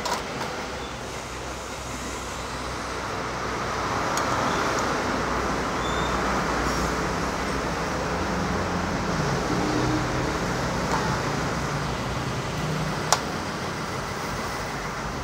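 Steady road traffic noise, swelling a little in the middle, with one sharp click a couple of seconds before the end.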